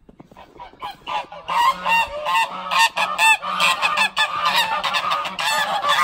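Several domestic geese honking, starting about a second in and building into a loud, continuous chorus of overlapping honks.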